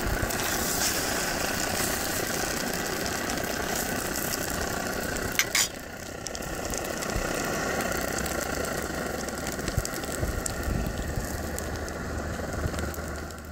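Svea 123 white-gas stove burning with a steady rushing noise under a cast iron pan, turned down from a high flame. Two short sharp clicks about five and a half seconds in.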